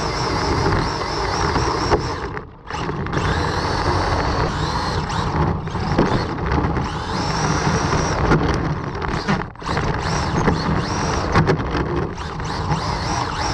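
Onboard sound of a Traxxas 1/16 Gymkhana rally RC car driving on rough asphalt: the electric motor's whine rising and falling with the throttle over loud drivetrain and tyre noise. The noise drops away briefly twice, about two and a half and nine and a half seconds in.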